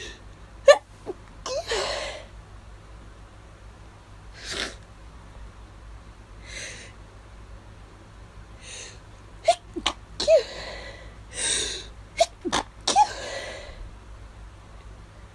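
A person's stifled allergy sneezes in quick succession: short, choked-off bursts, a couple about a second in, then a run of several from about nine and a half to thirteen and a half seconds, with short hissing breaths in between.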